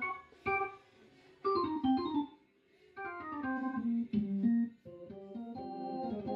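Korg Kross 2 synthesizer workstation being played: short chords and note phrases, with brief pauses between them, then a held chord near the end.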